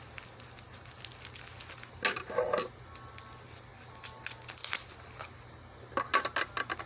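Packaging being handled during an unboxing: three short bursts of crinkling and small clicks, about two, four and six seconds in.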